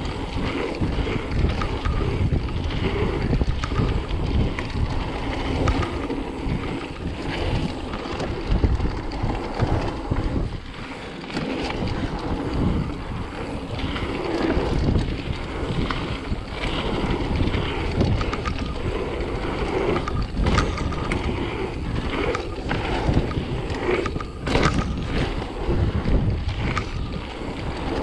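Wind buffeting a helmet or action camera's microphone during a fast mountain-bike descent, with a constant low rumble from the tyres and frequent rattling clicks from the bike. It eases briefly a little over a third of the way in, and a cluster of sharp knocks comes near the end.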